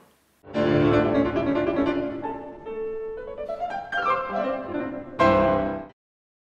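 Short instrumental intro jingle for the show, starting about half a second in and ending on a loud final chord that cuts off suddenly near the end.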